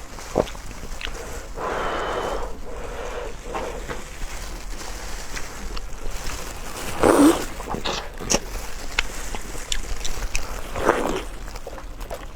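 Close-miked eating sounds: wet chewing and smacking, with scattered sharp clicks and a few louder noisy bursts about two, seven and eleven seconds in.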